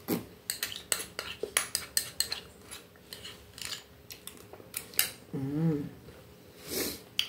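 A metal spoon clinking and scraping against a small clear dessert bowl as the last of a fruit salad is scooped up. There is a quick run of sharp clinks in the first two seconds, then a few scattered ones.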